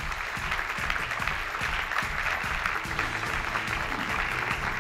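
Audience applauding steadily, a dense patter of many hands clapping, with soft background music underneath.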